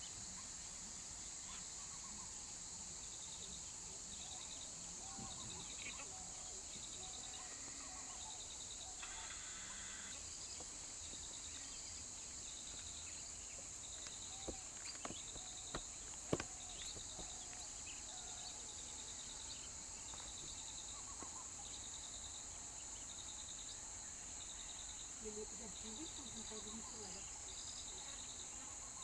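Steady high-pitched insect drone with a repeating pulsed chirp, with a few sharp clicks about halfway through.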